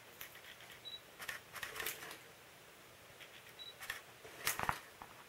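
Scattered light clicks and rattles as a cat paws at and shoves a striped board over an electric cat toy's string, with a louder knock about four and a half seconds in. Two short high beeps sound in between.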